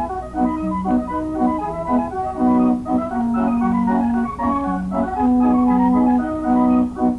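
Organ music: a quick melody of short notes, with a few longer held notes in the middle.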